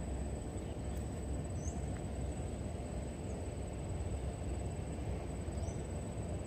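Steady low outdoor rumble with a constant faint high whine, a single faint click about a second in, and a few short, faint high chirps scattered through it.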